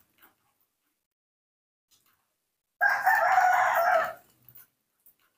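A single drawn-out animal call lasting about a second and a half, beginning about three seconds in, with near silence around it.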